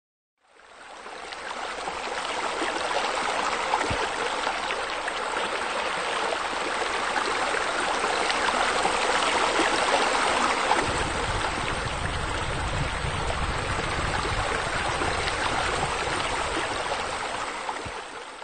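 Steady running, splashing water that fades in just after the start and fades out at the end, with a deeper rumble joining about halfway through.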